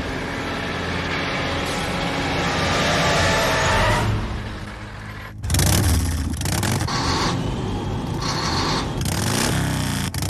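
Vehicle engines revving in a film chase soundtrack, the pitch climbing over the first few seconds. The sound then drops away, and about five and a half seconds in comes a sudden loud burst followed by several shorter loud bursts.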